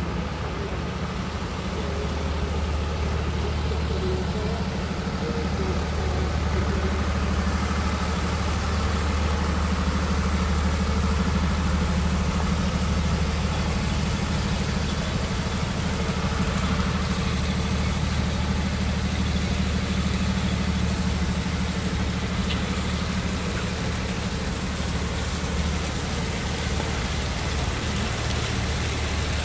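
Fire engine's diesel engine running steadily, a constant low hum.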